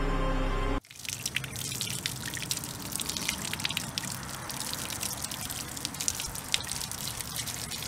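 Background music held on steady notes cuts off abruptly less than a second in. Then water from a garden hose pours and splashes onto dirt ground, a steady spatter full of fine crackling drips.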